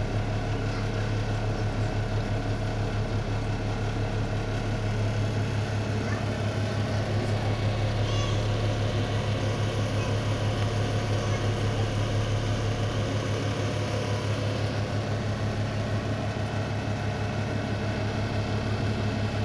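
Kitchen range hood's exhaust fan running with a steady low hum that throbs rapidly, plus a spread of steady higher tones: the hood is vibrating and running abnormally loud.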